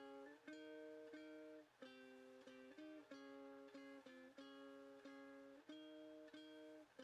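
Quiet background music of chords strummed on a guitar-like plucked string instrument, about one to two strums a second.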